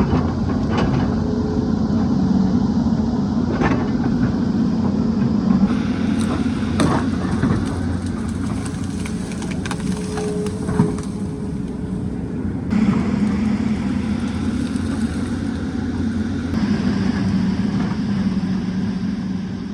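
Hydraulic excavator's diesel engine running steadily under working load, with a few short sharp knocks from the digging.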